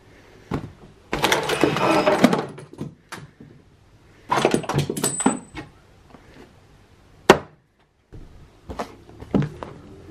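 Handling noise: rustling and knocks as a boxed drone battery is handled and moved about. There are two longer rustling stretches and several sharp clicks, with a short gap of silence just after a loud click about three-quarters through.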